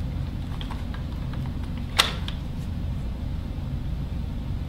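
Small plastic clicks and taps from handling a Sony Cyber-shot TX9 compact camera and its dock, with one sharp click about two seconds in, over a steady low hum.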